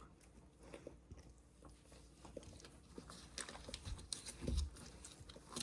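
A mother Labrador-mix dog licking and cleaning her puppies: faint wet licking and chewing sounds with small rustles, and a soft thump about four and a half seconds in.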